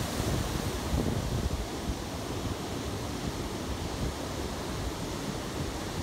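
Ocean surf breaking and washing in white foam over a rocky reef against a seawall, a steady rush. Wind buffets the microphone in uneven low rumbles.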